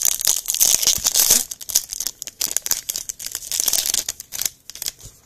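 The wrapper of a 2022 Bowman Draft Lite baseball card pack being torn open and crinkled in the hands. The crinkling is densest for about the first second and a half, then comes in shorter rustles and stops shortly before the end.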